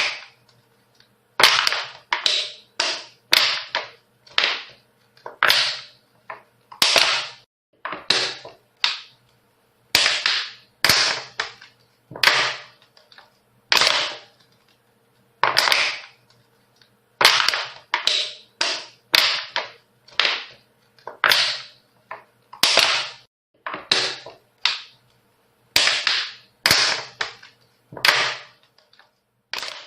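Hockey stick striking a puck on ice over and over: a series of about thirty sharp cracks, irregularly spaced about one a second, each followed by a short fading hiss.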